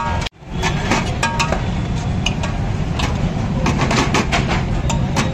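Steel spoon clinking and scraping against a steel pot as thick potato bhaji is scooped out, a series of short metal clinks over a steady low rumble of road traffic.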